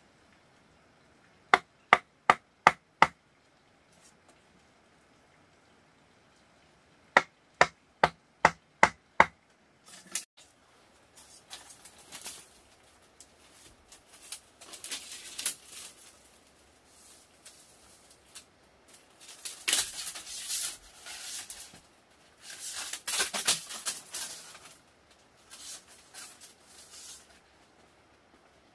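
Two runs of sharp knocks, first five and then six, about three a second, followed by irregular rustling and scraping that comes and goes, loudest in two stretches in the second half.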